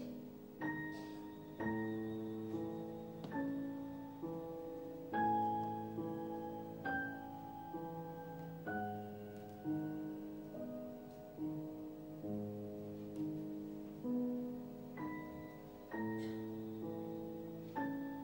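Slow, quiet solo piano music recorded live: soft chords and single notes struck about once every second or so, each left to ring and fade.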